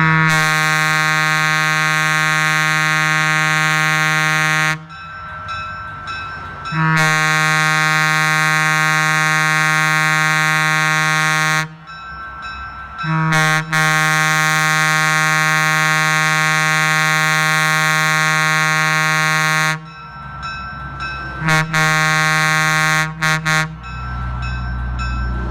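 Wabco E2 single-chime locomotive air horn, aluminum bell on a cast iron power chamber, blowing one steady note in three long blasts of about five seconds each, then a shorter blast with a couple of quick breaks. A low rumble follows near the end.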